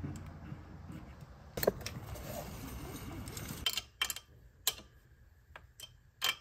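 A low rumbling noise with one sharp click, cutting off about halfway through. Then scattered sharp metallic clicks of a small wrench against the nuts, washers and steel bracket of a throttle cable mount at the firewall.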